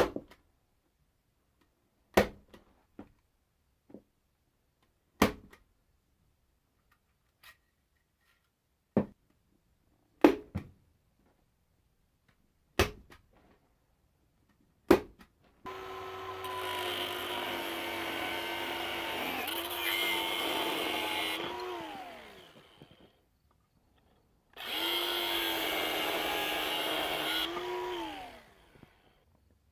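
A hand staple gun firing into a vinyl seat cover, a string of sharp snaps a second or two apart. Then an angle grinder runs twice for a few seconds each time, its pitch falling as it spins down after each run.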